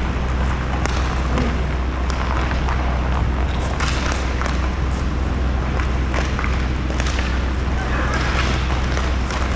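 Roller hockey play in an indoor rink: scattered sharp clacks of sticks and puck, with skate wheels rolling on the plastic sport-court floor and players calling out, over a steady low hum.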